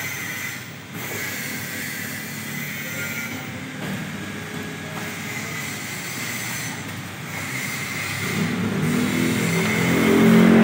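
Epson L120 inkjet printer starting a print job: its motors whir, getting louder over the last couple of seconds, over a steady background hum.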